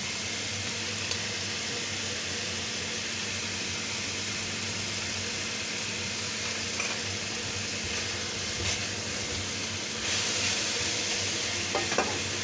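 Chicken stir-frying in oil in a pan, a steady sizzle with a few light taps of a utensil. The sizzle grows louder about ten seconds in, and two sharp clicks come near the end.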